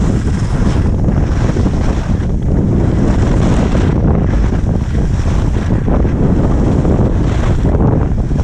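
Strong wind rushing over an action camera's microphone during a fast downhill ski run, with the hiss of skis scraping the snow swelling about once a second as the skier links turns.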